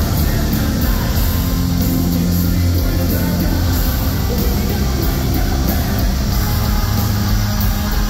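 Hard rock band playing live and loud in an arena: electric guitars, bass and drums under a male singer's vocal, as heard from within the crowd.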